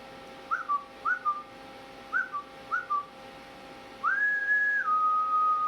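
A person whistling: three pairs of short two-note chirps, each sliding up and then dropping to a lower note, then about four seconds in one longer whistle held high that steps down to a steady lower note.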